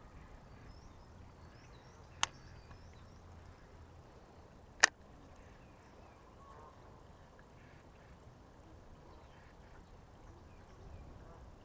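Two sharp clicks about two and a half seconds apart, the second much louder, over a faint outdoor background with a few faint high chirps.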